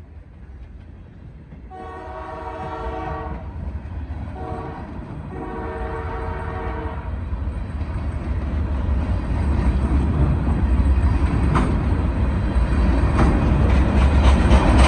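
CPKC diesel locomotive's air horn sounding three blasts, long, short, long, the close of the grade-crossing signal. Then the low rumble of the locomotive and train grows steadily louder as it nears and passes, with a few sharp clicks of wheels over rail joints near the end.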